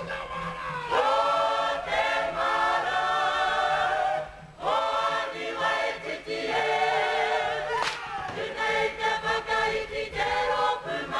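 Kapa haka group singing a Māori action song in unison, many voices with wavering held notes, with a brief break in the singing about four and a half seconds in.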